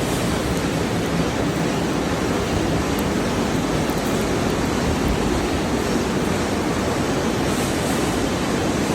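Steady, even rushing noise of a continuous mesh belt furnace plant for hardening fasteners in operation, with no distinct knocks or tones.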